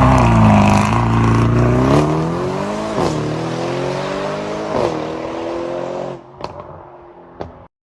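Aston Martin engine accelerating hard through the gears. Its pitch climbs, drops sharply at upshifts about three and five seconds in, and climbs again before fading away about six seconds in. Two faint clicks follow near the end.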